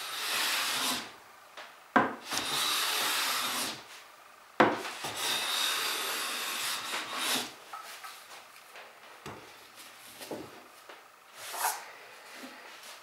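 Metal hand plane shaving a hardwood board, flattening a slight bow out of its face. There are three long hissing strokes in the first seven seconds, the second and third each starting with a sharp knock as the plane bites, then fainter scraping.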